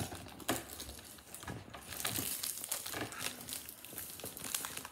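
A plastic sweet wrapper crinkling as hands handle it, giving a scatter of small irregular crackles.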